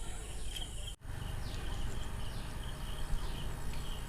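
Outdoor ambience of insects droning steadily, with a short falling chirp repeating about twice a second, over a low rumble. The sound drops out briefly about a second in.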